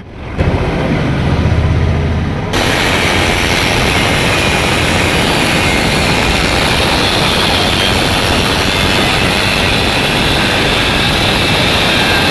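Angle grinder cutting into a motorcycle silencer's steel shell. It starts up with a low hum, then about two and a half seconds in bites into the metal with a loud, steady hiss that holds.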